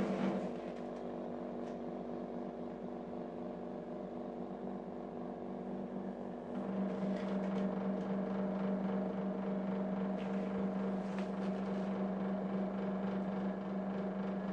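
Corona CD-P6318 dehumidifier running with a steady low hum that gets louder about six and a half seconds in. The hum comes from the used unit's outer casing vibrating, which makes it noisy.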